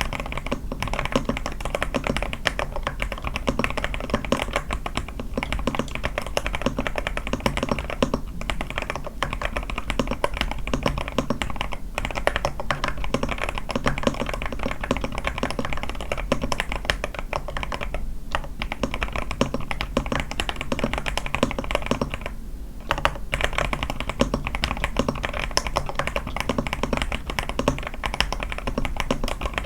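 Continuous fast typing on an A81 mechanical keyboard with lubed Sky switches, a tape mod and lubed stabilisers, giving a dense run of keystroke clacks with a few short pauses.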